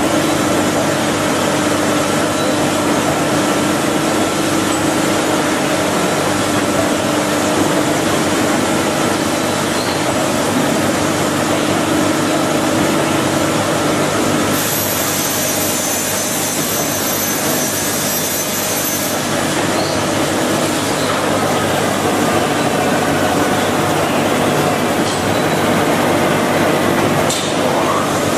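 Automatic plywood edge-trimming saw machine running with a steady mechanical hum. About halfway through, a brighter high hiss comes in for about four seconds.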